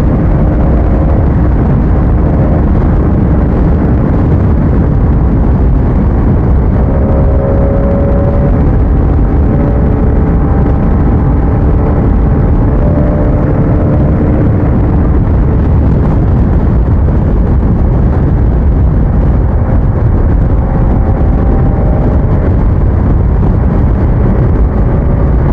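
Motorcycle riding at speed: heavy, steady wind rush on the microphone over a faint engine note that drifts slowly in pitch.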